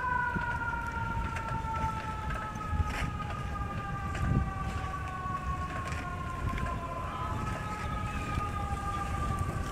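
A siren wailing: two tones glide slowly down in pitch and jump back up near the end, over a steady low rumble of wind and movement.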